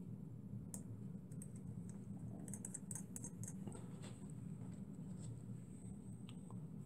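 Faint, irregular small clicks and taps of hands handling a miniature metal engine and its parts, with a quick flurry of clicks near the middle, over a steady low hum.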